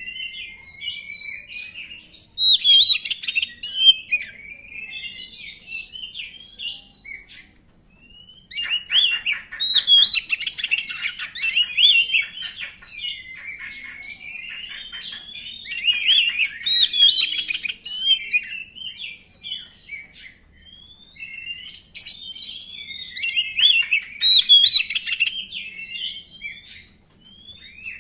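An Oriental magpie-robin (black-chested kacer) singing a loud, varied song of rapid whistles and trills. It comes in long bursts separated by brief pauses.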